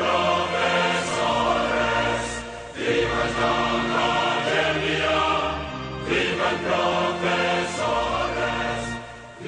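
Choral music: a choir singing long held chords, with a new phrase starting about three seconds in and again about six seconds in.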